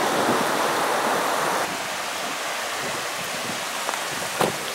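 Muddy floodwater rushing in a steady stream of runoff over a field and road, a rain-driven flash flood. It gets a little quieter about a second and a half in, and there is a short knock near the end.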